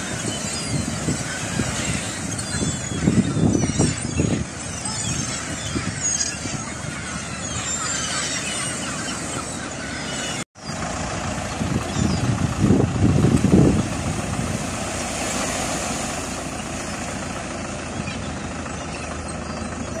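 A flock of gulls calling over a steady rush of surf, with wind gusting on the microphone. The sound cuts out for a moment about halfway through, and the calls are fewer after it.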